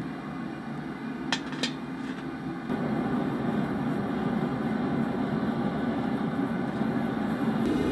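Gas forge burner running steadily, louder from about three seconds in, with two sharp metallic clicks just over a second in.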